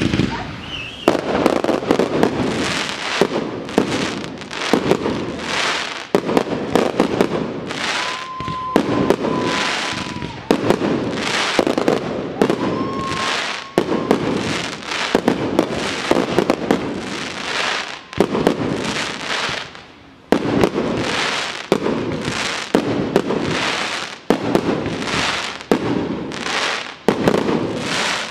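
Aerial fireworks display: a continuous run of shell launches and bursts, one or two bangs a second, with a steady whistle heard twice near the middle.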